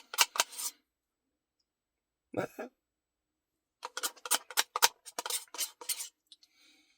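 Eating sounds from a Dairy Queen Blizzard: runs of quick clicks and scrapes in three bursts, with the longest one, about a dozen clicks, near the end.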